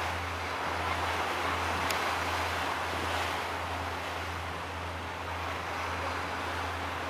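Steady rushing of waves and wind on the microphone, over a low steady hum.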